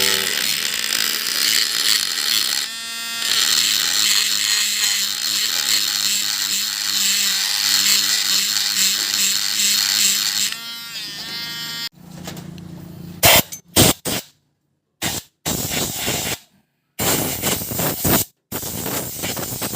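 Small electric power tool running steadily with a high, hissy whir for about ten seconds. Then it stops and restarts in short bursts, with silent gaps between them.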